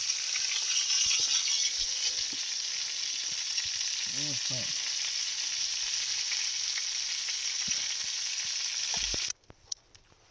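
Venison backstrap sizzling steadily as it fries in butter and olive oil in a pan; the sizzle cuts off suddenly near the end.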